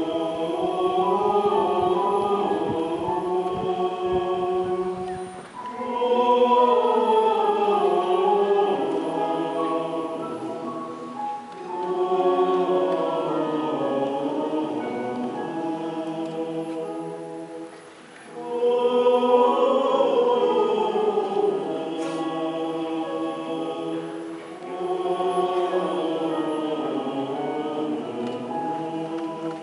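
A group of voices singing a hymn, phrase after phrase of about six seconds, each followed by a brief pause.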